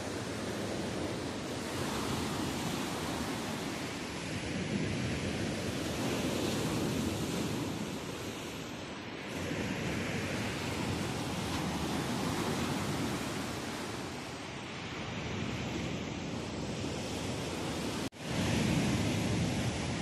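Sea surf breaking and washing over a pebble beach, a steady rush that swells and eases every few seconds as the waves come in. Near the end the sound cuts out for a split second.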